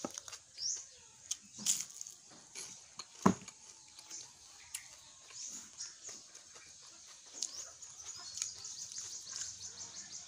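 Chewing on a crisp fried spring roll, with small birds chirping in the background and one sharp knock about three seconds in.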